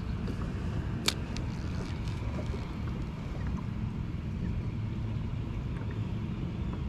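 Wind buffeting the microphone, a steady low rumble, with one sharp click about a second in.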